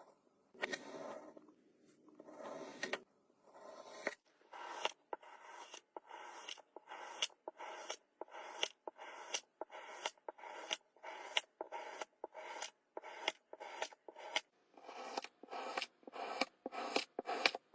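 Knife repeatedly slicing through kinetic sand: crisp scraping cuts, each starting with a sharp click, about one and a half a second, coming faster near the end.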